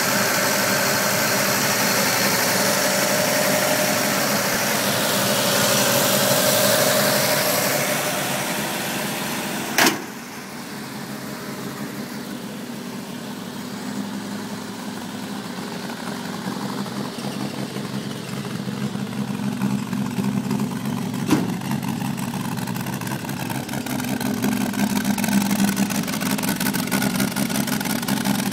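1949 Chevrolet 3800 one-ton pickup's inline-six engine idling steadily. It is heard up close at first, with a dense rushing sound, then more quietly after a sharp click about ten seconds in, with its low idle note swelling again toward the end. A second sharp click comes about two thirds of the way through.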